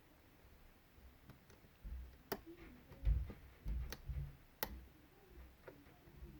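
Small metallic clicks and ticks of a pick and tension tool working the pins of a Medeco Biaxial 51S lock cylinder, with two sharper clicks about two and four and a half seconds in and soft handling bumps between them.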